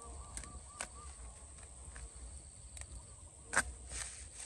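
Faint, scattered crackles and snaps of dry bamboo leaves and twigs as hands work among the stems at the base of a bamboo clump, with one louder sharp snap about three and a half seconds in.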